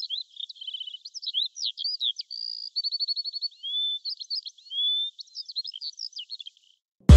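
A songbird singing a varied song of quick chirps, rapid trills and short whistled notes, stopping shortly before the end.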